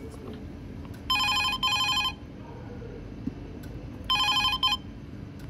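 Mobile phone ringtone: two short bursts about a second in, then another burst about three seconds later, over a low steady background rumble.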